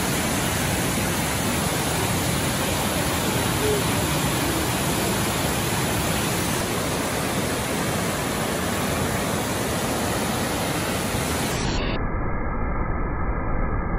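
Steady rush of water pouring down a cascade waterfall. Near the end the sound suddenly turns duller as its hiss drops away.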